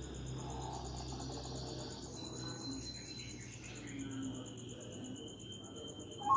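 Insects trilling steadily, with a rapid high pulsing over a low background hum. The zebra dove's first coo begins right at the very end.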